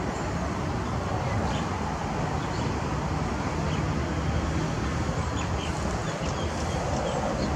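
Diesel locomotive engine running with a steady low rumble as the train rolls slowly in along the platform, over a steady wash of station noise.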